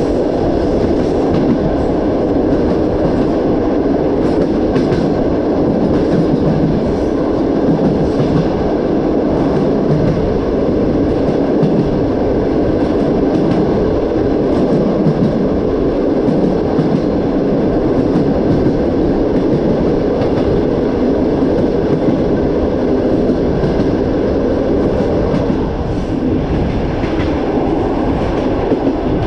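Rumble and wheel clatter of a passenger train heard from an open carriage window, with wind noise, while a long freight train of open gondola wagons passes close alongside. The passing wagons' noise drops away about 26 seconds in as the freight train ends.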